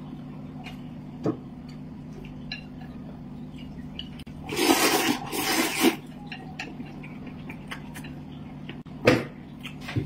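A man slurping noodles from a bowl: a loud, wet slurp lasting about a second and a half midway, with light clicks of chopsticks on the bowl and another short, sharp noise near the end, over a steady low hum.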